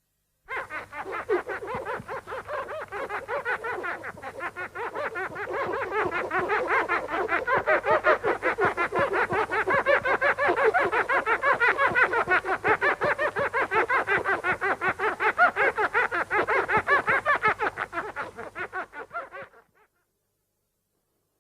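Mothra's monster cry from the 1960s Showa films: a long, rapid, pulsing chitter of quick repeated squeaky clicks that grows louder over the first few seconds and stops abruptly near the end.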